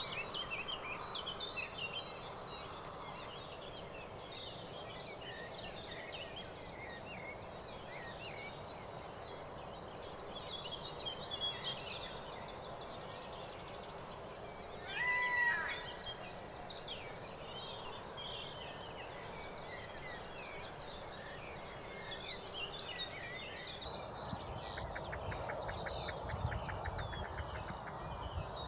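Many small songbirds singing and chirping at once in open countryside, with one louder, short call about halfway through.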